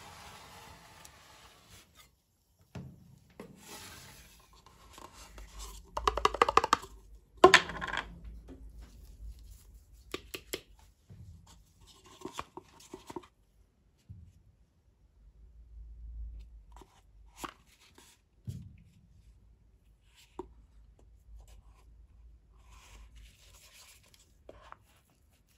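A metal spatula scraping frozen ice cream across a steel cold plate as it rolls up, in quick rasping strokes that are loudest about six to eight seconds in. Later, plastic tongs click and rolls are set into a paper cup in short scattered knocks and scrapes.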